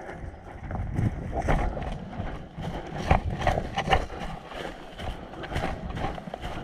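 Footsteps of a person running over leaves and brush, an uneven string of thuds and scuffs, with a low rumble of wind and movement on the body-worn microphone.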